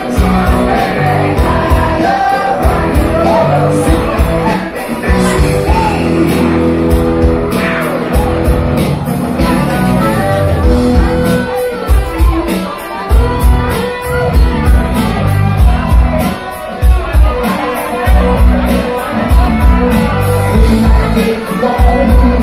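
Live cover band playing a song through the house speakers, with a singer over a steady drumbeat.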